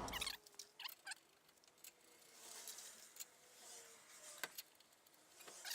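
Near silence broken by a few faint, sharp clicks.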